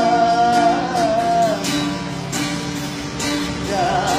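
Street busker singing to his own strummed acoustic guitar: a long held note with vibrato breaks off about a second and a half in, leaving the guitar strumming, and the voice comes back near the end.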